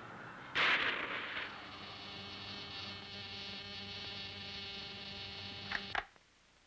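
Alarm clock buzzer going off with a loud start about half a second in, then buzzing steadily. Near the end it is switched off with a couple of clicks and stops abruptly.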